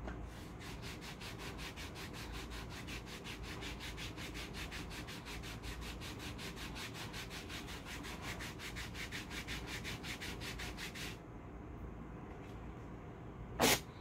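A hand briskly rubbing a cold wax hair-removal strip down onto the skin of the shin, about four quick strokes a second, stopping after about eleven seconds. Near the end comes one short, sharp rip, the loudest sound, as the strip is pulled off the leg.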